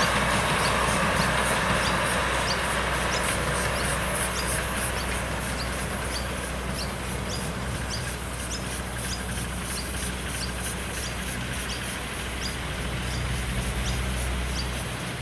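Miniature live-steam model of NSW 36 class locomotive 3658 running with a goods train: a steady hiss with a fast ticking beat, easing off as it draws away. Short high chirps repeat throughout.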